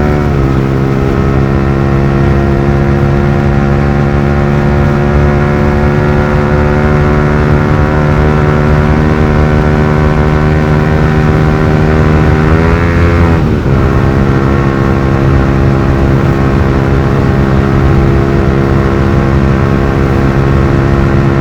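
Yamaha R15 V3's single-cylinder engine running loud through a modified exhaust, heard from the bike while riding at a steady cruise. About thirteen seconds in the revs climb briefly and drop sharply with a gear change, then the note settles steady again.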